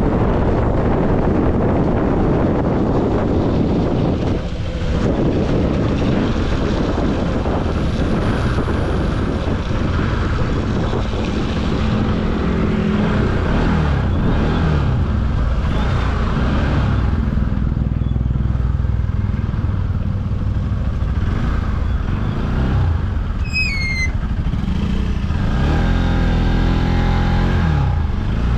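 Motorcycle engine running under way over a steady low rush, its note rising and falling as the throttle changes, most clearly near the middle and toward the end. A brief run of high chirps sounds about two-thirds of the way through.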